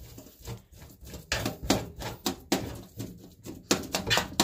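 Irregular short knocks and scrapes of kitchen work on raw mullet flesh for fish-cake paste, about two a second.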